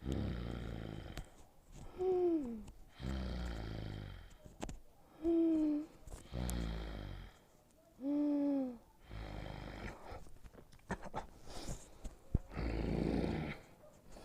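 Cartoon-style snoring sound effect: a low, rattling snore on the in-breath, then a short whistle on the out-breath, repeated three times, followed by more rattling snores.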